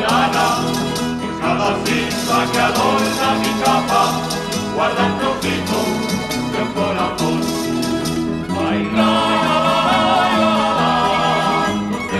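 Background music: an acoustic Spanish-language song with strummed guitars and plucked strings, growing fuller about nine seconds in.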